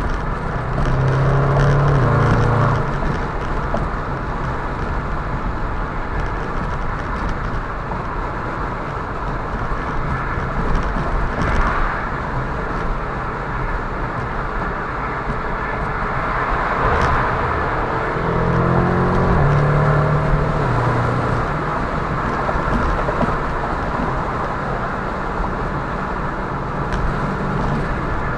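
Steady road and wind noise inside a moving car with the sunroof open. Twice, near the start and again about two-thirds of the way through, car engines swell louder and rise in pitch as the cars accelerate hard.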